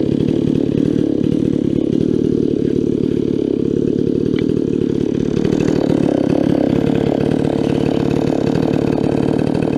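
Stihl 046 Magnum two-stroke chainsaw with a 24-inch milling chain running steadily at high speed, cutting a slab from a log in an Alaskan-style chainsaw mill.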